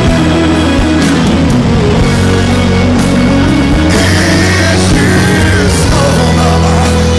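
Loud rock music soundtrack.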